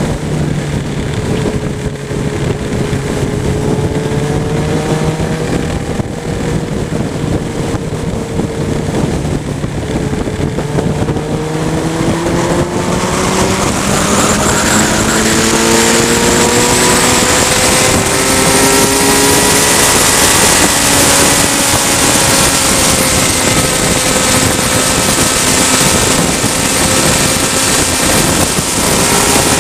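Motorcycle engine running under way, with wind rushing over the microphone. About twelve seconds in, the engine pitch climbs in steps as the bike speeds up, and the wind noise grows louder.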